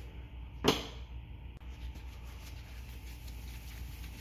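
One sharp knock about a second in, then faint clicks and rustles of hands handling the outboard's rewind-starter cowling, over a steady low hum.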